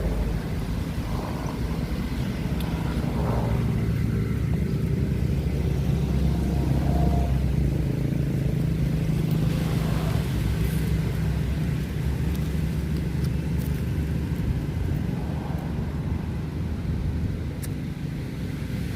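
A steady low rumble with a faint hum, stronger through the middle.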